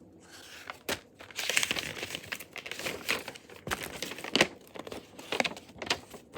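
Packaging crinkling as it is handled and sorted through, a run of irregular crackles and rustles that starts a fraction of a second in, with sharper loud crackles scattered through it.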